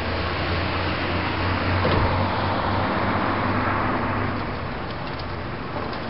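Steady street traffic noise with a low hum, growing louder around the middle and easing off again.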